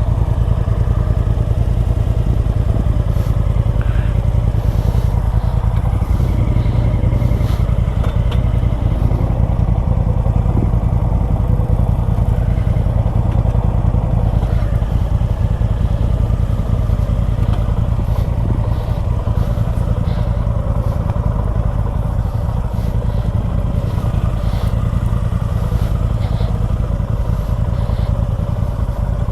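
Suzuki V-Strom 250 SX single-cylinder engine running steadily under way, over a heavy low rumble, with scattered small clatters.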